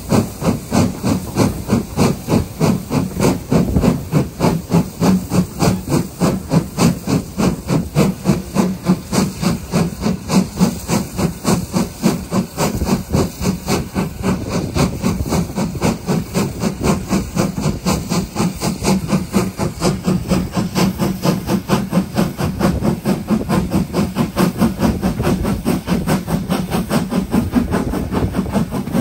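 1887 Lancashire & Yorkshire Railway Class 25 steam locomotive No. 52044 working under steam, with a steady run of exhaust beats at about three a second over a steam hiss. The beats grow softer and less distinct in the second half.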